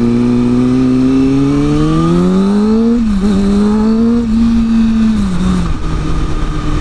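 Kawasaki ZX-6R's inline-four engine accelerating, its revs rising for about three seconds, then a quick upshift and a short pull before the revs fall as the throttle is eased off, over wind and road noise.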